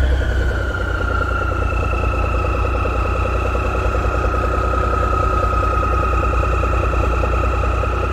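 A boat engine running steadily, a low throb with a high whine over it; the whine drops slightly in pitch as the engine eases off in the first second or two, then holds steady.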